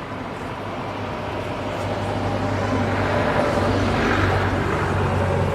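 A motor vehicle passing close by: a steady engine hum with road noise that grows louder to a peak about four seconds in, then begins to ease.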